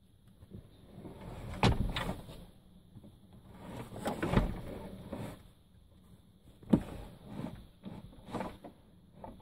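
Swivel base of a Ford Transit double passenger seat being released and turned round by hand: metal clunks and scraping from the base, with sharp knocks a little under 2 s, about 4.5 s and about 7 s in.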